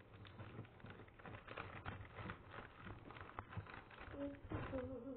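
Someone chewing sweets close to the microphone: a run of small crunching clicks, with a brief low pitched sound about four seconds in.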